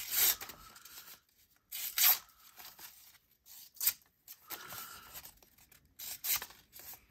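A sharp sheepsfoot pocket-knife blade slicing through printer paper, about five separate strokes, each a short crisp hiss, with quiet gaps between them.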